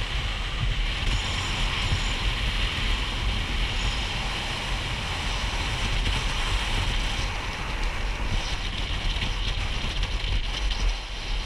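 Steady wind rush on the microphone at downhill speed, mixed with the rolling roar of longboard wheels on asphalt.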